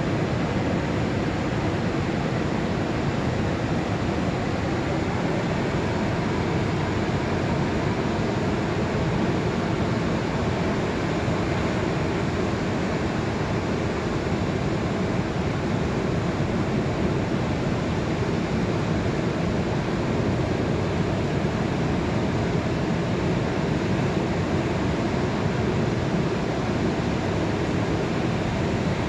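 Ocean surf breaking on a sandy beach, many lines of breakers at once: a steady, even wash of noise with no single wave standing out.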